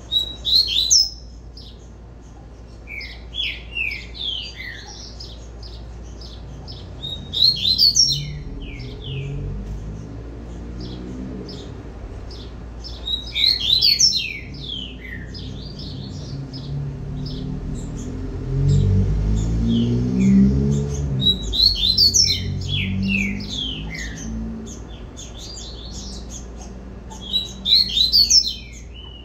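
Caged double-collared seedeater (coleiro) singing its 'tui-tui' song: about six short phrases of rapid, high chirping notes, a few seconds apart.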